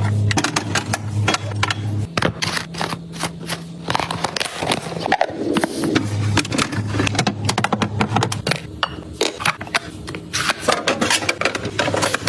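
Rapid, irregular clicks, taps and scrapes of plastic containers and food packaging being handled and set into a fridge. A steady low hum comes and goes underneath.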